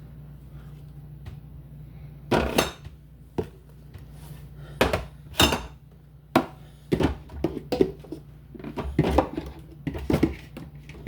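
Bottles and jars being handled and set down on refrigerator shelves: irregular clinks and knocks, about a dozen, over a low steady hum.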